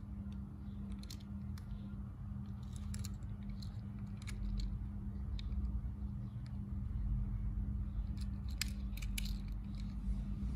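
Light clicks and taps of fingers handling a small diecast toy car, scattered and irregular, clustered near the end, over a steady low hum and rumble.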